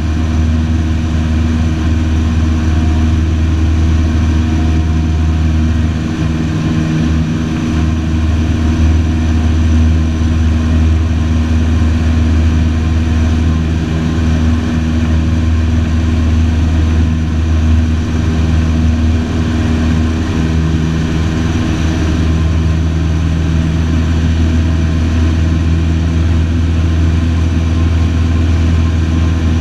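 Light single-engine aircraft's piston engine and propeller running steadily in flight, heard from inside the cockpit as a loud, even hum.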